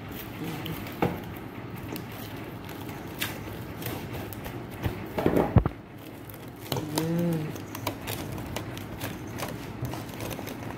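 Plastic cling wrap crinkling and crackling as it is pulled out and stretched over a metal mixing bowl, with a louder knock about five and a half seconds in.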